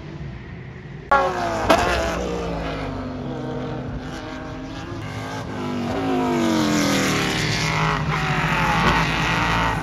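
Several race cars passing at speed, their engine notes falling in pitch one after another as they go by. The sound starts suddenly about a second in and grows louder again in the second half as more cars pass.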